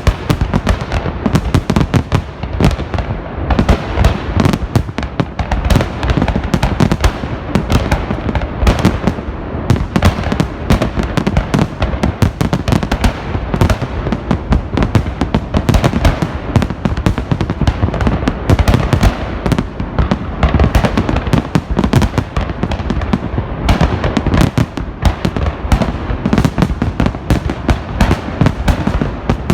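Festive fireworks salute: a dense, continuous barrage of bangs, many a second and overlapping, with deep booms underneath and no pause.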